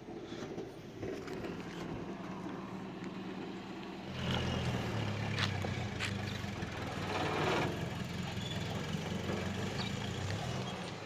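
A motor engine running steadily, a low even hum that comes in about four seconds in, with a few knocks over it.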